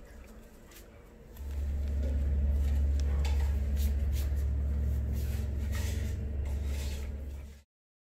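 Steady low rumble of road traffic outside a window, with light clicks and knocks over it. The rumble starts about a second and a half in and cuts off suddenly near the end.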